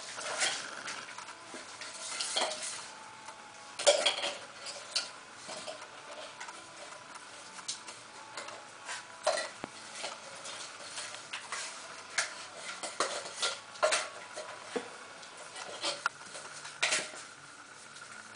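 Puppies' claws clicking and scrabbling on a ceramic tile floor as they play: irregular sharp clicks and taps, the loudest about four seconds in.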